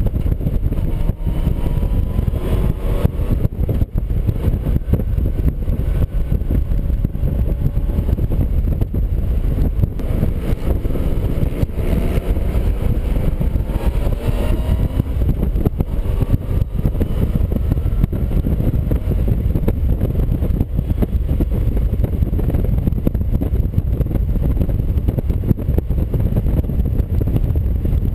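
Motorcycle riding at road speed: a steady, heavy low rumble of wind and road noise on the microphone over the engine. The engine's pitch can be heard rising several times in the first half, as it accelerates.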